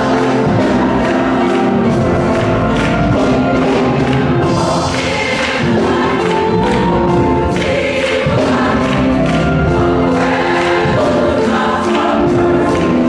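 Women's gospel choir singing together, many voices holding and moving between sustained notes.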